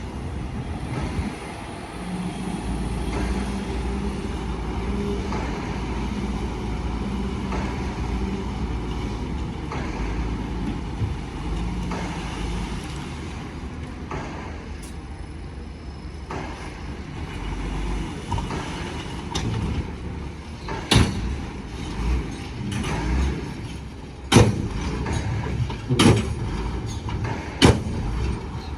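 Diesel engines of heavy construction machinery running steadily, with a low rumble. Through the second half come four or five sharp bangs a second or two apart.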